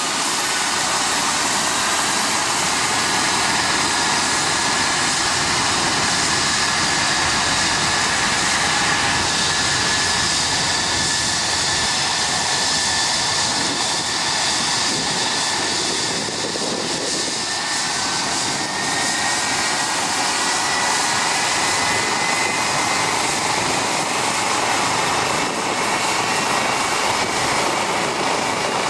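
Eurocopter EC 135 twin-turbine helicopter running on the ground before takeoff: a steady turbine and rotor noise, with a high turbine whine that slowly rises in pitch.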